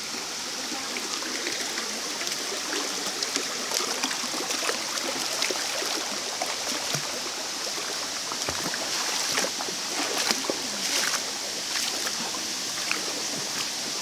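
Shallow stream water running steadily over rocks, with irregular splashes of feet wading through it.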